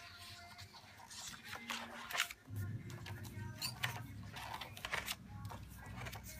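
Paper pages of a spiral-bound notebook being turned one after another, a series of short rustles and flicks of paper against the wire coil. A low steady hum comes in about two and a half seconds in.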